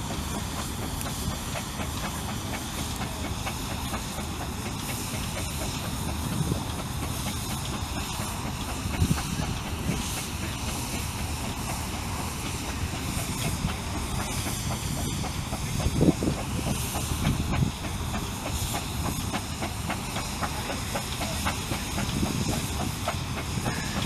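Steam traction engine working, with a steady hiss of steam and a few low thumps, the loudest about sixteen seconds in.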